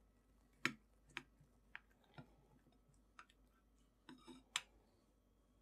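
Faint, scattered clicks and crackles of a chef's knife cutting down through a caramelized apple tarte tatin and its baked puff-pastry base, with a short cluster of clicks about four seconds in.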